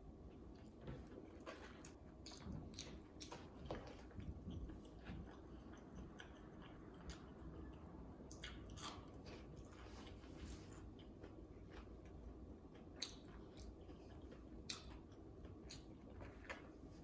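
Faint chewing of food, with scattered soft mouth clicks and smacks at irregular moments.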